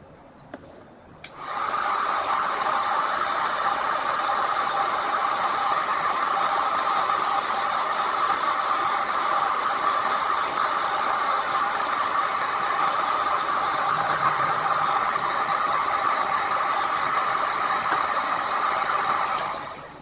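Electric heat gun running steadily, switched on about a second in and off just before the end.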